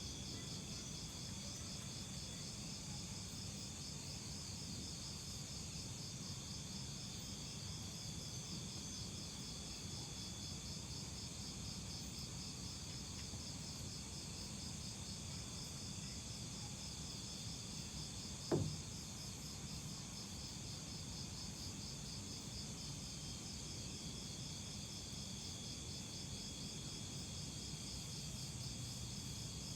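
Steady chorus of night insects such as crickets, a fast pulsing high trill that does not let up, over a low rumble. A single sharp knock about two-thirds of the way through.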